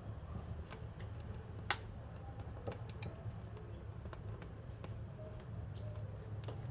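Wood-fired cooking stove burning: a steady low rumble from the firebox with scattered crackles and pops of burning wood, one sharper pop a little under two seconds in.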